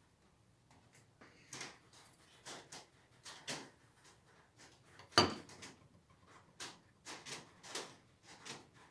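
A bare steel screwdriver shaft and its parts being handled on a wooden workbench: a string of light clinks, knocks and scrapes, with one sharper knock about five seconds in.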